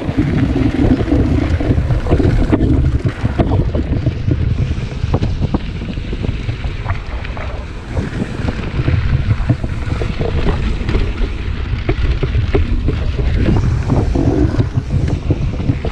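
Wind rushing over the camera microphone and mountain bike tyres rolling on a dirt trail, with frequent clicks and rattles from the bike over bumps.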